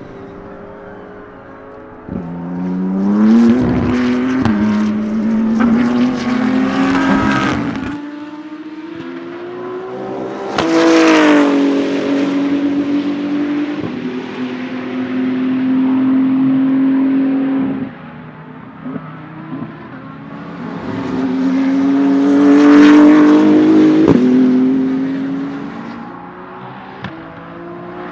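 BMW M4 GT3 race car's 3.0-litre twin-turbo inline-six accelerating hard through the gears, with the pitch climbing and dropping at each upshift and sharp cracks between. It then makes several loud passes, the pitch falling as the car goes by, with abrupt cuts between passes.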